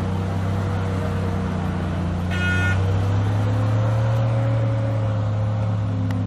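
ZIL-157 six-wheel truck engine pulling steadily under a load of logs through mud, running a little faster and louder from about two and a half seconds in. A brief high squeal sounds about two seconds in.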